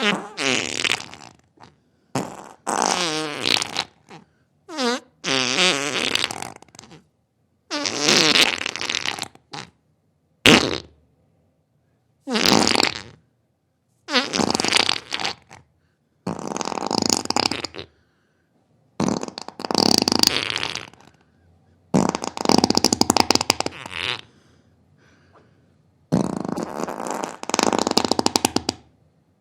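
Farts, about a dozen in a row, each lasting from half a second to a few seconds with short silences between them; some are raspy and some waver in pitch.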